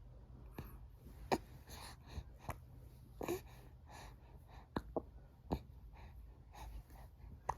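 A baby hiccuping again and again: short, sharp hics about once a second at irregular spacing, some with a brief voiced catch, over a low steady hum.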